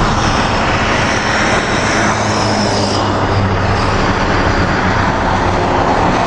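Steady engine drone with a low hum from a rental box truck idling close by, with road noise around it.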